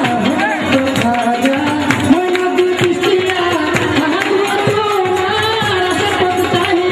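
Baul folk song performed live: a man singing a wavering melody over drums and accompanying instruments.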